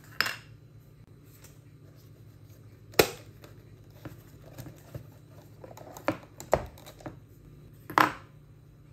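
Plastic clicks and knocks of a 9-volt battery being pried out of a multimeter's battery compartment and unsnapped from its clip connector. There are several sharp clicks with lighter handling between, the loudest about three seconds in.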